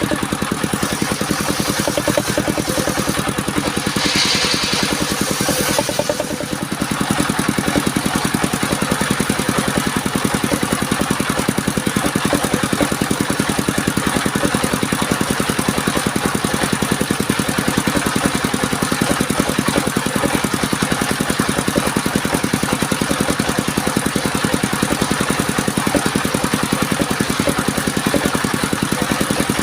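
Engine of a portable circular-saw sawmill running steadily with a fast, even firing rhythm, with a brief hiss about four seconds in.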